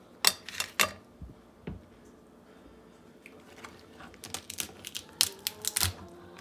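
A kitchen knife chopping through cooked lobster shell onto a wooden cutting board, a few sharp knocks in the first second. After a quiet spell, a quick run of clicks and cracks as the lobster shell is pulled and broken apart by hand.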